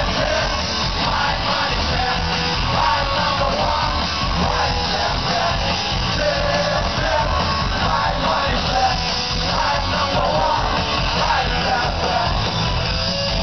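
Rock band playing live and loud, heard from inside the crowd, with a singer's shouted vocals over electric guitars.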